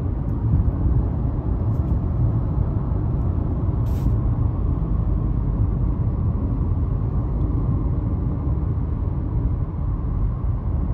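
Steady rumble of a Honda car's tyres and engine, heard from inside the cabin while cruising at highway speed, around 90 km/h. There is a brief high click about four seconds in.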